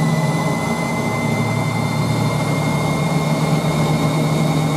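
1968 Hoover Spinarinse 3012A spin dryer running its spin, with the motor and belt-driven pump humming steadily. Over the hum sits a thin high whine that rises slightly in the first second or two as the drum gathers speed, then holds steady.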